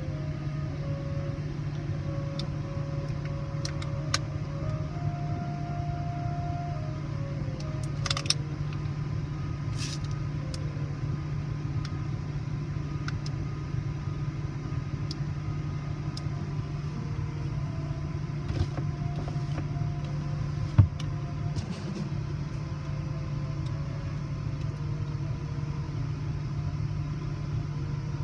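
Car engine idling steadily, heard from inside the car's cabin, with a few faint clicks and one sharper tick about 21 seconds in.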